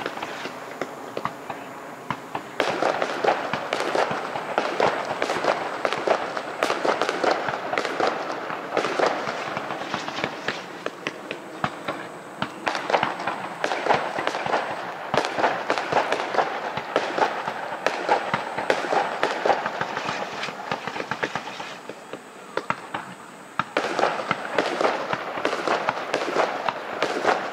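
Aerial fireworks going off in a dense barrage: many bangs and crackles overlapping one another. It is quieter for about the first two seconds and again for a second or so about three quarters through.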